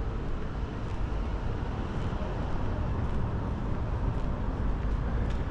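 Steady road traffic from the surrounding city streets: an even low rumble of cars with no single vehicle standing out.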